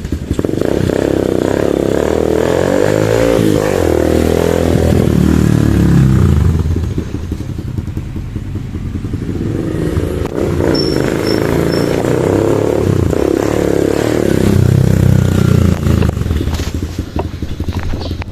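Kawasaki Wind 125 motorcycle engine being ridden on a test ride after a tune-up for backfiring. It speeds up and eases off twice, with the pitch rising and falling.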